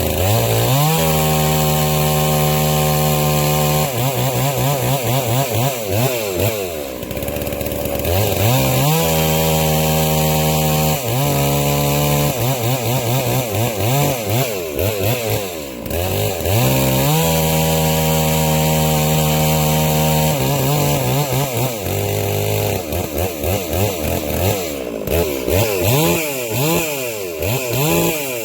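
Farmertech G660 two-stroke chainsaw being revved: the engine climbs to full throttle and holds there for about three seconds, three times, then drops back. Shorter throttle blips and a wavering idle fall between the holds.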